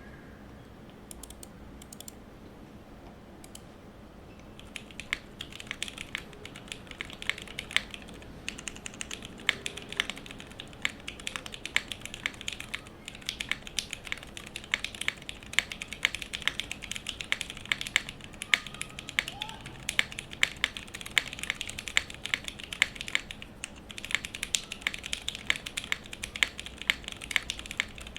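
Typing on a mechanical keyboard with tactile Cherry MX Retooled Brown switches and GMK keycaps, in a gasket-mounted polycarbonate case with a full aluminium plate and no foam. The key sound is deep and slightly muted. A few scattered key presses give way to steady, fast typing about five seconds in, with a short pause near the end.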